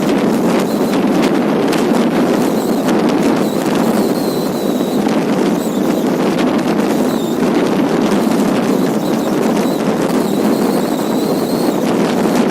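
Wind buffeting the microphone: a steady, loud rushing noise with crackle through it. A faint high whistle comes in twice, about four seconds in and again near the end.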